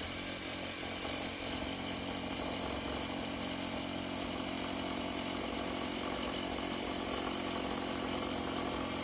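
Bosch GBH 18V-45C cordless SDS-max rotary hammer running steadily as it core drills through concrete dense block.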